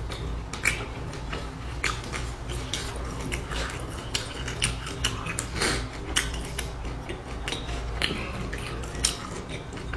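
Eating sounds: metal chopsticks clicking against a stainless-steel bowl and chewing of crisp fried battered food, many short sharp clicks at an uneven pace over a steady low hum.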